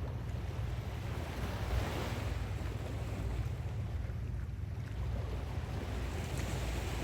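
Sea waves washing onto a sandy beach, swelling and falling back, with wind buffeting the microphone as a steady low rumble.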